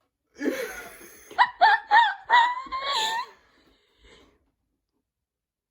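A person laughing: a short low vocal sound, then a run of high-pitched giggles that die away after about three seconds.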